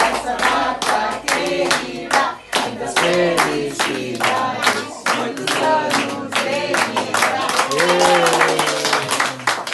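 A small group singing a birthday song together while clapping hands in a steady rhythm, ending on a long held note.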